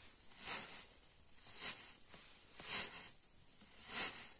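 Dry straw rustling as it is scooped and stuffed by hand into a woven plastic feed sack, four rustles about a second apart.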